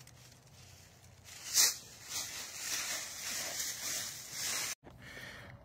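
Dry leaves and grass rustling and crackling as a dog roots and noses around an old pumpkin, with one sharper crunch about one and a half seconds in. The rustling breaks off abruptly near the end.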